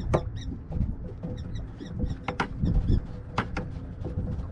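Hollow knocks and clatter of a freshly kept fluke and gear being handled aboard a small boat. Short runs of quick, high squeaky chirps go on through it, over a faint steady hum.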